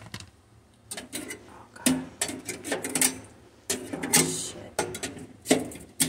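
Kitchen clean-up handling noise: irregular clicks, knocks and short rattles of dishware and utensils being moved and wiped.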